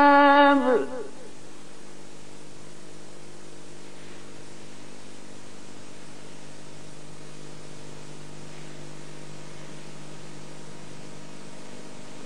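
A long held note of Quran recitation ends with a falling glide about a second in. Then only a steady hiss and electrical hum of an old recording remain.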